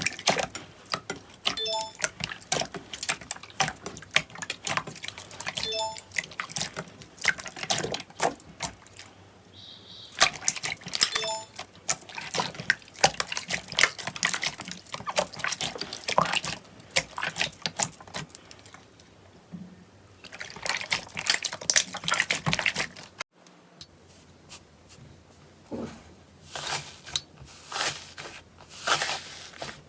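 Slime being squeezed and poked by hand, giving irregular wet clicks, pops and crackles. The sound stops for a moment about three quarters of the way through, then carries on.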